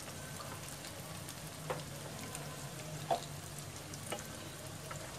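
Tapioca-starch-coated chicken pieces sizzling as they fry in hot lard in a pan, a steady hiss broken by a few sharp pops.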